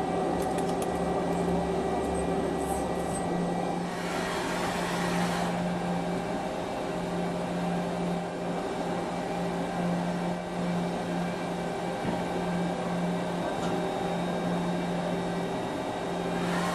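CNC machine running with a steady hum of several even tones, with a brief burst of hiss about four seconds in and another near the end.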